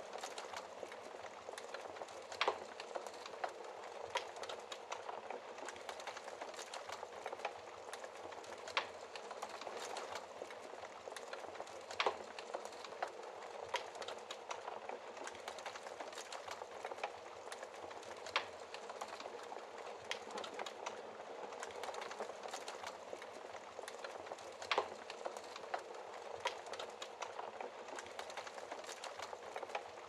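Log fire crackling in a fireplace: a dense, steady run of small snaps with a louder pop every few seconds.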